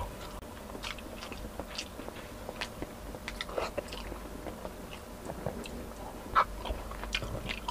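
Close-up mouth sounds of a man chewing a mouthful of chicken and rice, with scattered small wet clicks and smacks.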